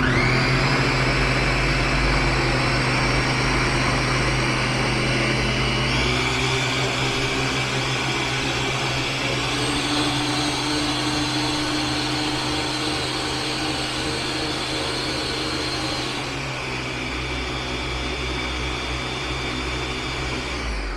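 Ninja BN801 blender motor running as its three-bladed assembly purees a full container of tomatoes, starting suddenly. The pitch of the motor changes twice, about six and sixteen seconds in, as it is switched from low to medium to high speed.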